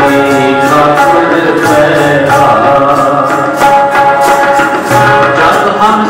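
Sikh kirtan: a hymn sung to harmonium and tabla. Held harmonium notes sit under a gliding vocal line, with steady tabla strokes.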